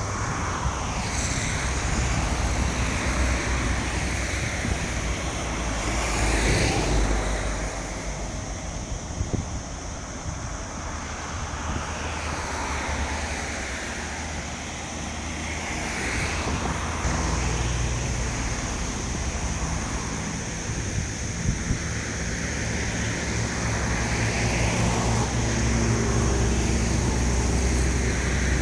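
Road traffic: vehicles passing one after another every few seconds over a steady low rumble, with a faint steady high-pitched hiss running underneath.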